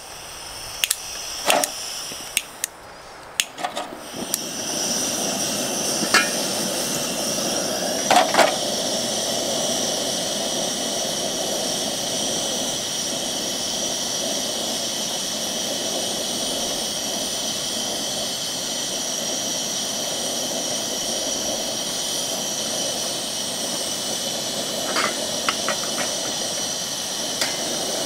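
Portable gas camp stove burner lit under a pan: a few clicks and knocks over the first few seconds, then the flame runs with a steady hiss from about four seconds in, with an occasional clink of the pan.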